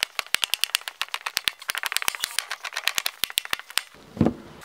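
Kitchen knife chopping a chocolate bar on a plastic cutting board: a fast run of sharp clicks, about nine a second, as the blade cracks through the chocolate and taps the board. The clicks stop near the end, where there is a single louder thud.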